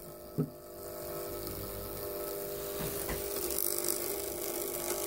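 Small loudspeaker driver fed AC from a small mains transformer, buzzing with a steady multi-tone hum that builds over the first second or so, as it is overdriven to destroy it. A click comes just after the start, and a hiss rises under the hum.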